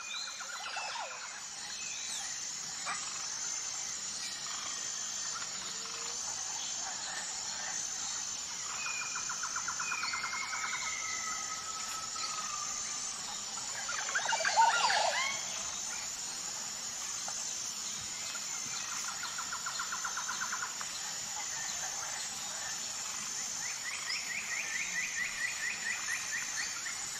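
Woodland birdsong: rapid trills that recur every few seconds, over a steady high-pitched background buzz. A louder flurry of calls comes about halfway through.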